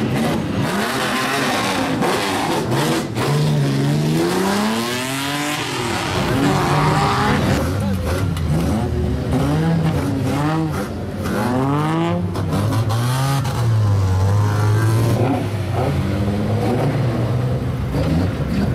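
Old Japanese cars with straight-piped exhausts revving hard as they pull away, the engine note rising and falling again and again, with a steadier lower note toward the end.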